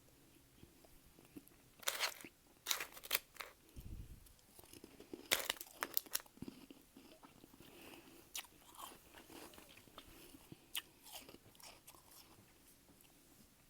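Close-up crunching and chewing of soft, powdery freezer frost in the mouth, in irregular clusters of crisp crunches with short pauses between bites. A single low thump sounds about four seconds in.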